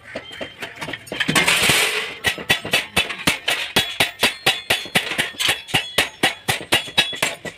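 Hammer striking sheet metal in a quick, even rhythm of about five blows a second, each with a short metallic ring. A brief burst of scraping or hissing noise comes just before the run of blows.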